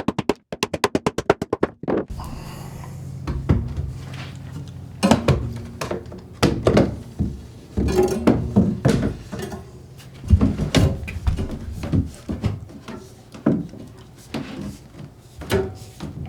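Irregular thunks and knocks of PVC drain pipe and fittings being handled and pushed together for a dry fit. A quick run of rapid clicks comes first.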